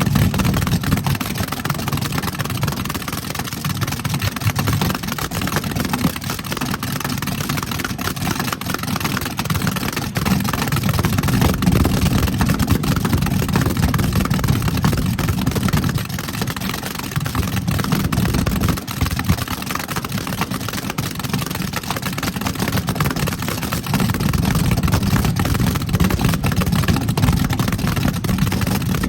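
Drag race car engine running with a loud, low rumble, its level rising and falling through the stretch.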